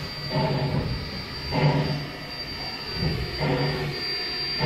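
Queensland C17 class steam locomotive moving off slowly, giving three or four exhaust chuffs about a second and a half apart over a steady hiss of steam from around its cylinders.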